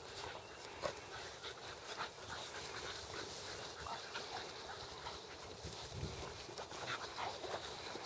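Puppies play-wrestling, with a faint scatter of short dog noises and scuffles.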